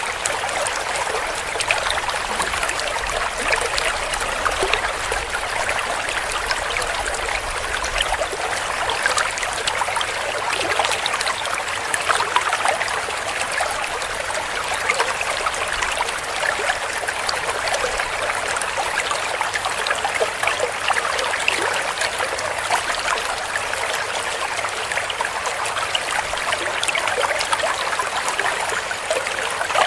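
Shallow stream flowing and gurgling over stones, a steady babble of small splashes and trickles.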